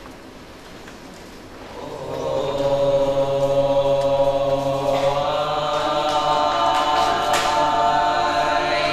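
Chanting voices holding long, steady notes, entering about two seconds in and thickening as more voices join about five seconds in.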